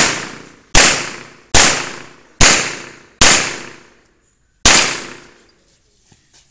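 A string of pistol shots fired in quick succession, one about every 0.8 s, each a sharp crack with a short echoing tail. After a longer pause comes one more shot, then two faint clicks near the end.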